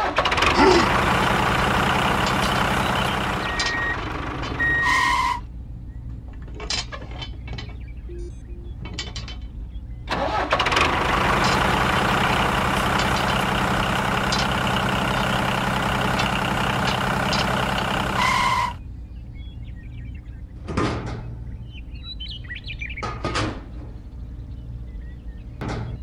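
Engine sound of a miniature toy tractor as it drives, in two steady runs of about five and eight seconds that each cut off suddenly. Between and after the runs come a few light clicks and knocks of small parts being handled.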